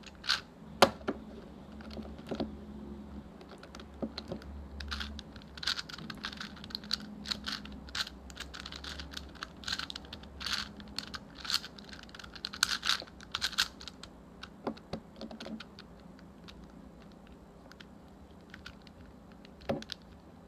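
Layers of a plastic 4x4 Rubik's cube being turned quickly by hand: a fast, uneven run of clicks and clacks that thins out after about fourteen seconds to a few single clicks.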